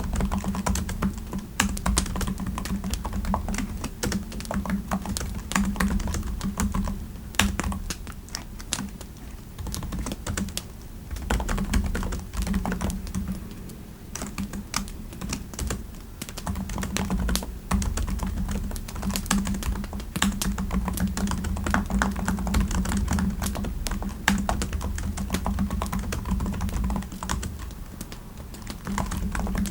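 Typing on a computer keyboard: runs of quick key clicks with brief pauses between them, over a steady low hum.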